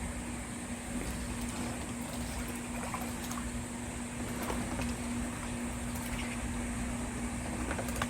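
A steady low mechanical hum holding one constant tone, with a few faint clicks over it.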